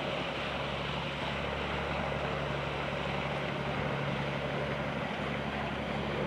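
Steady low engine drone with a constant hiss of wind and water.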